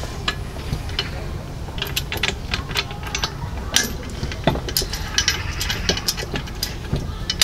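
Hands fitting parts onto a paddock stand's tube on a wooden table: a string of small clicks, taps and knocks.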